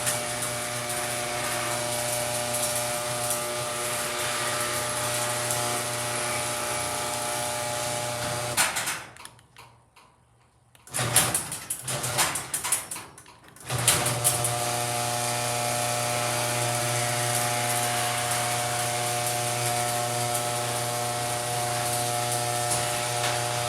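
The HD200D's electric motor running with a loud, steady hum and whine. It shuts off about nine seconds in, starts briefly in stuttering spurts, then runs steadily again from about fourteen seconds in.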